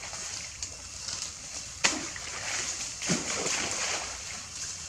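Pond water splashing and sloshing as a baby macaque paddles its hands in duckweed-covered water. There is one sharp splash about two seconds in, followed by smaller sloshing.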